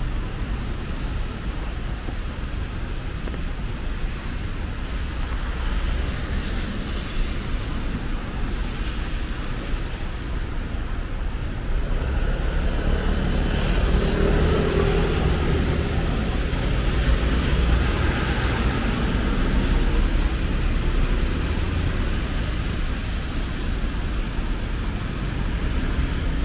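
Road traffic on wet roads: cars and motorcycles passing, a steady rumble and tyre hiss that grows louder about halfway through as a motorcycle engine goes by close.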